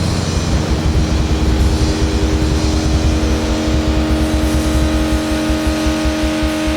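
Doom metal music: a heavily distorted drone holds steady notes over a rapid, low drum beat.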